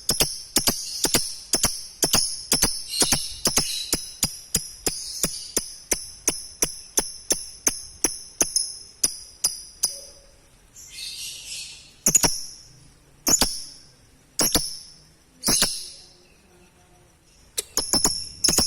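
Lovebird ngekek: a long run of rapid, high-pitched chirps, about four a second, slowing after about nine seconds. A short raspy call follows, then a few single chirps about a second apart, a brief pause, and the rapid chirping starts again near the end.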